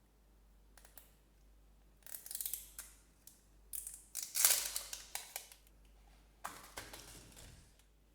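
Small toy packaging being opened: three bouts of crinkling, rustling and tearing, the loudest in the middle.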